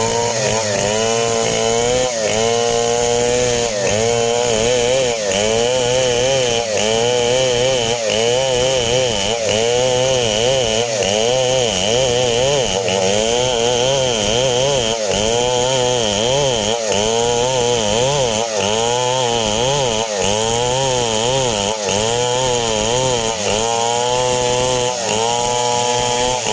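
STIHL 070 two-stroke chainsaw running at high revs under load, cutting through coconut-palm timber. Its pitch dips and recovers in a steady rhythm about once a second as the chain bites into the wood.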